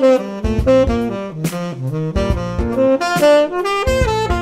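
Tenor saxophone playing a quick eighth-note jazz line built from pentatonic shapes (E minor, D minor and C major pentatonic) over a C major 7 one-chord vamp, with a rhythmic backing track underneath.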